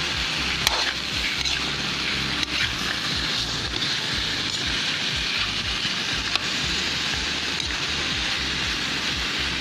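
Sliced chayote, carrots and pork sizzling in a hot pan while being stirred with a spatula, with a few light clicks of the spatula against the pan.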